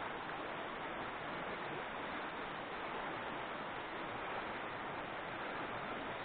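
Steady rush of a shallow, clear river running over gravel riffles.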